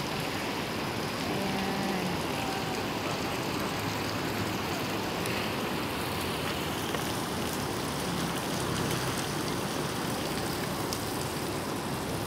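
Steady city street noise: an even rushing hiss of traffic with no distinct event standing out.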